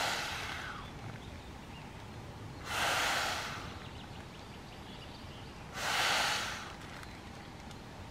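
Hissing puffs of air, each about a second long, repeating about every three seconds: one is fading just at the start, then two more follow.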